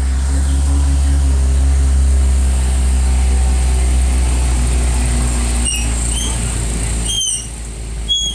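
Steady engine hum and low road or wind rumble of a slow-moving motor vehicle. Several short, high-pitched squeaks come in the last few seconds.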